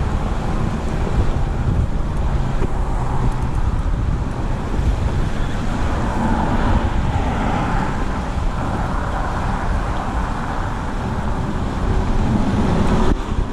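Wind buffeting the microphone over a steady rumble of road traffic from the highway bridge alongside.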